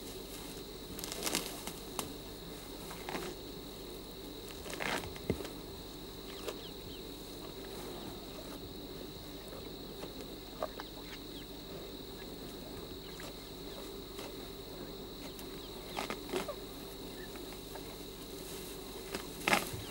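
A greater one-horned rhinoceros grazing, with scattered short rustles and crunches of grass being torn and chewed, the loudest near the end. A thin steady high whine, like insects, runs underneath.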